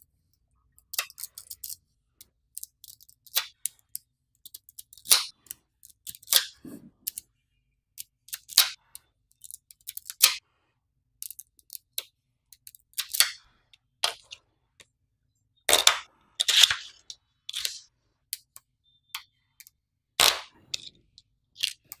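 Small magnetic balls clicking and clattering as they snap together and are pressed into a block by hand: irregular sharp clicks and short rattling clusters with silent gaps between.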